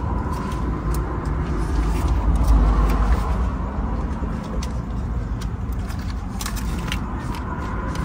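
Scattered light plastic clicks and rustles as steering-wheel control switch panels are handled and fitted onto a steering wheel, over a steady low rumble.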